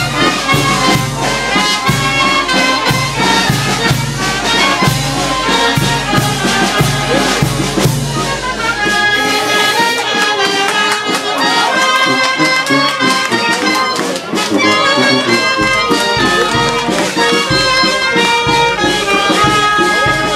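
Traditional dance music from a band with brass instruments: sustained melody notes over a steady bass beat about twice a second, the bass thinning out about halfway through.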